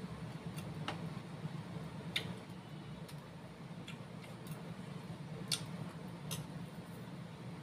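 Metal spoons clinking against a ceramic soup bowl of bakso: light, sharp clicks at irregular moments, about eight in all, one louder clink about five and a half seconds in. A steady low hum sits underneath.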